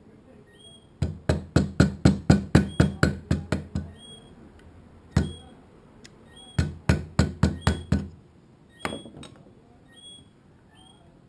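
A mallet striking a hand-held carving gouge to cut a small wooden carving clamped in a metal vise: quick runs of sharp knocks, about four a second, broken by pauses and a few single blows.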